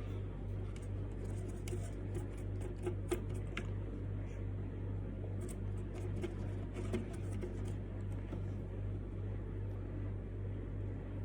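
Steady low electrical or fan hum, with scattered faint taps and scrapes of a paintbrush working paint onto a small wooden fridge magnet.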